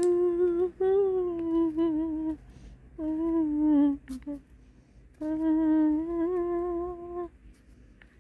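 A woman humming a slow tune with her mouth closed, in three phrases of long held notes with short pauses between them.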